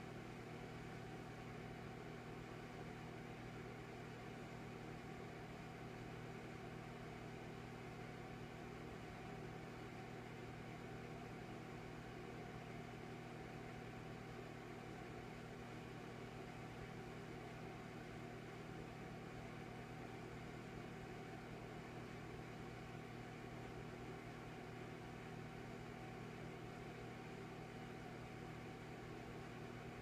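Electric fireplace running: a faint, steady mechanical hum with a low buzz, without any crackling.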